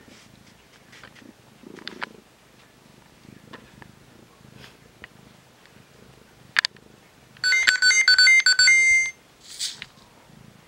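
A cat purring softly and steadily. About seven seconds in, a bright electronic 'ttiring-ttiring' chime plays for about a second and a half: quick notes alternating between two pitches, the sound that excites the cats.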